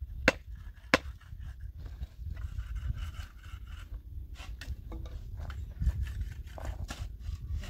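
Two sharp knocks about a second apart near the start, then a run of lighter knocks, clicks and scraping, over a steady low rumble.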